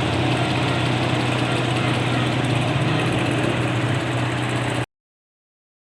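660 cc engine idling steadily with a misfire fault, then cutting off abruptly near the end.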